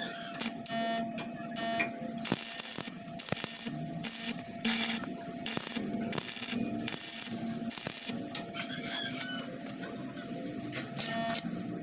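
Electric arc welding crackling in a series of short bursts as steel flat bar is tack-welded onto a tricycle sidecar's floor frame.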